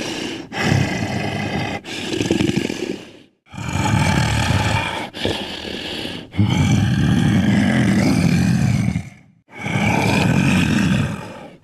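A series of about seven rough, growling roars made as homemade sound effects for Totoro, each lasting one to two seconds with short breaks between, the longest running for over two seconds just past the middle.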